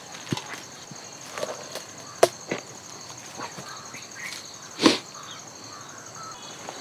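A few scattered sharp knocks and taps, the loudest about two and five seconds in, over steady faint insect chirping.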